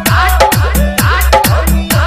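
Bhojpuri devotional song in a hard-bass DJ remix: a heavy bass beat, with a falling bass drop on the beats at about two to three beats a second.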